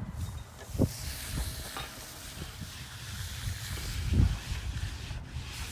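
Trowel scraping and hissing across a fresh concrete surface, with a few dull thumps, the loudest about four seconds in.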